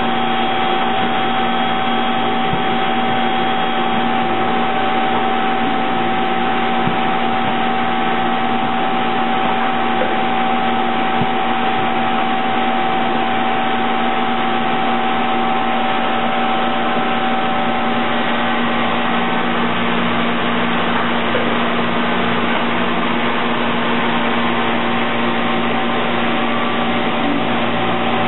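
Plastic-cup stamping and stacking machinery running: a steady mechanical hum and hiss with several steady tones, and no separate strikes standing out. One mid-pitched tone in the hum stops about twenty seconds in.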